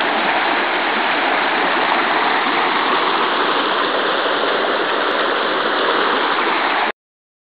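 Shallow river water rushing over rocky riffles: a steady, loud rush that cuts off suddenly about seven seconds in.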